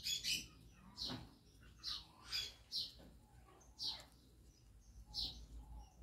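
Parakeets chirping: about nine short, high chirps, each falling in pitch, at irregular intervals of roughly half a second to a second.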